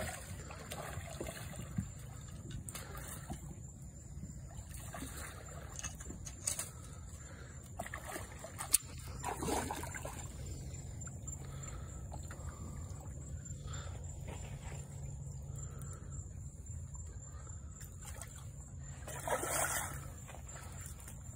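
Water sloshing and splashing as a hooked redfish is fought and landed at the water's edge, with two louder splashy bursts about nine and nineteen seconds in and a few sharp clicks. A steady high-pitched insect trill runs underneath.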